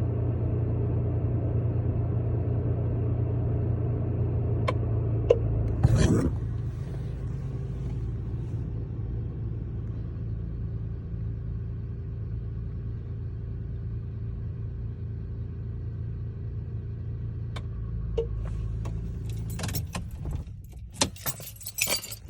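2001 Toyota Tacoma engine idling steadily, heard from inside the cab, with a few brief sharp clicks about five seconds in and again later. Near the end the engine drone drops away and a run of sharp clicks and jangling, like keys being handled, follows.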